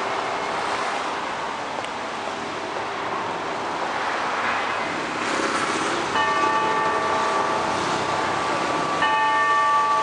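Wako clock tower's bell sounding the time signal: two ringing strokes about three seconds apart, the first about six seconds in. Each rings on, over steady city traffic.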